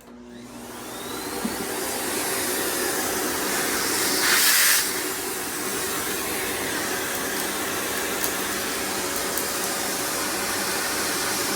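Electrolux canister vacuum cleaner switched on, its motor spinning up with a rising whine, then running steadily, with a louder rush of air about four seconds in. It is running to test a cracked plastic hose patched with tape, which leaks only the slightest bit of air.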